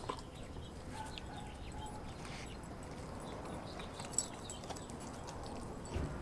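A dog's claws clicking on patio tiles as it walks, then faint wet clicks as it picks up and mouths a piece of raw meat, with a low thump near the end.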